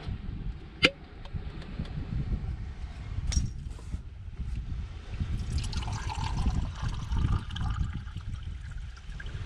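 Low wind rumble on the microphone with the sound of moving water, clearest about six to eight seconds in, and two sharp clicks in the first few seconds.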